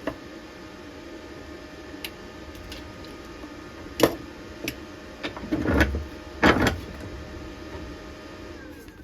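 Several sharp metallic knocks and clunks as the freshly welded steel test piece is handled and worked to check the weld's penetration, over a steady background hum. The loudest knocks come about four seconds in and again about six and a half seconds in.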